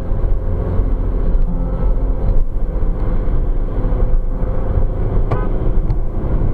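Car driving at motorway speed, heard from inside the cabin: a steady drone of engine and tyre noise.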